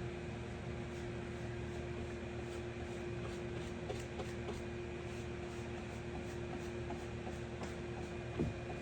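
Steady mechanical hum holding one constant tone, with faint light ticks scattered through and a short dull thump near the end.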